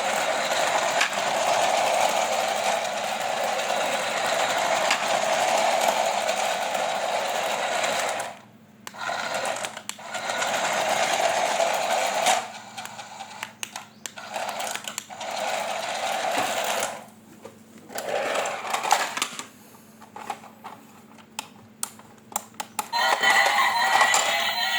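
Small electric motor of a remote-control toy whirring steadily, then stopping and starting several times, with short clicks and rattles in the pauses.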